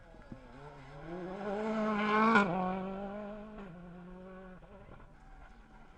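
Rally car engine at full throttle, its note climbing for about two seconds and at its loudest around two and a half seconds in. It then drops sharply and holds a lower note for about two more seconds before fading.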